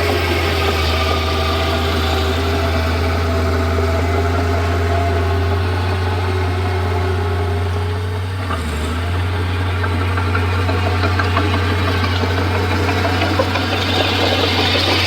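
Komatsu D31P bulldozer's diesel engine running steadily, with a brief dip in its sound a little over halfway through.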